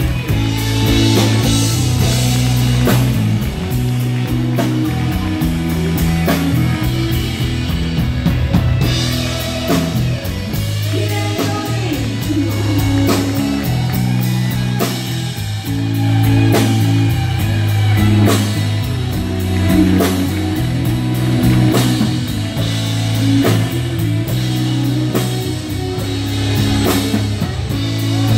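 Live rock-and-roll band playing loud: a Telecaster-style electric guitar takes the lead over bass guitar and a steady drum-kit beat.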